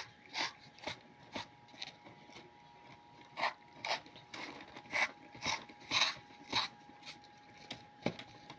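Packaging of a herbal tea being unpacked: about a dozen short, crisp crackles and crunches at uneven intervals, over a faint steady hum.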